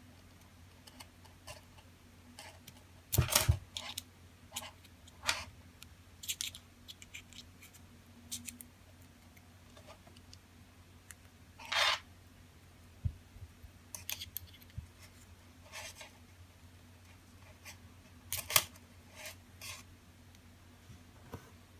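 Irregular small clicks, taps and scrapes of an Apple Watch and its straps being handled as the silicone band is slid out and a Milanese mesh band fitted. The sharpest clicks come a few seconds in, about midway, and shortly before the end.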